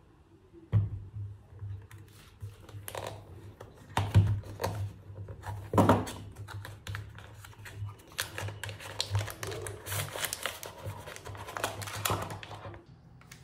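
Hands opening a small cardboard box and handling plastic-wrapped accessories: scattered clicks, taps and crinkles of cardboard and plastic packaging. A low steady hum runs underneath from about a second in.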